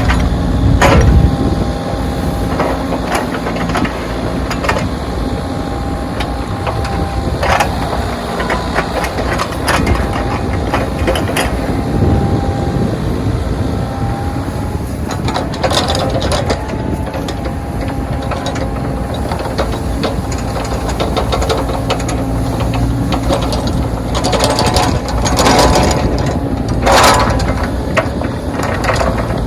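Backhoe working snow: its engine runs steadily with a high whine over it and scattered clanks and knocks throughout.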